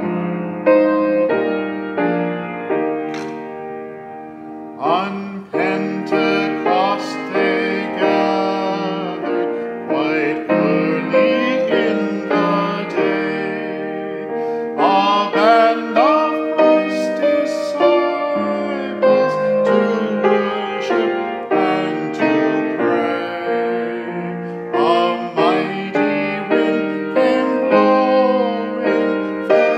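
Grand piano playing, with a man's voice singing along over it from about five seconds in.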